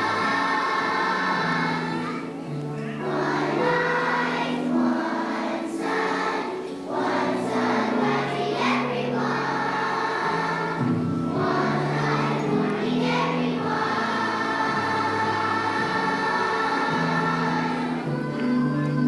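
Elementary-school children's choir singing a song, the notes held and moving in steps.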